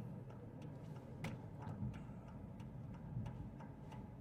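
A car's turn-signal indicator ticking steadily inside the cabin, about three clicks every two seconds, over a faint low hum of the moving car.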